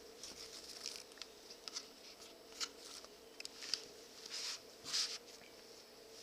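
Leather being hand-stitched: a run of short, irregular scratchy rasps and rubs as thread is drawn through the leather and the pieces are handled, ending about five seconds in.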